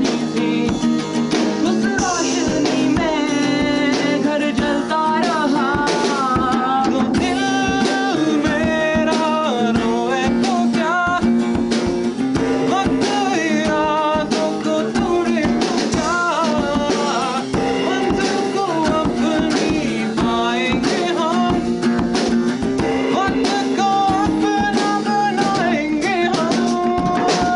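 Live acoustic rock performance: a man singing in Urdu over a strummed acoustic guitar, with a drum kit played along.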